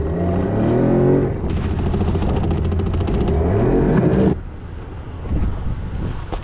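An engine running and revving, its pitch rising in the first second and again just before it stops abruptly about four seconds in.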